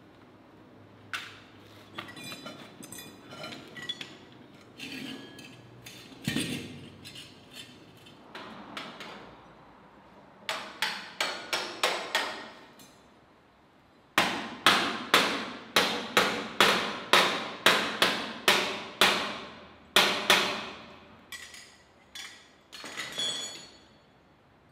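Hammer striking steel on a scrap-metal sculpture. Light, irregular taps come first, then runs of hard ringing blows at about two a second.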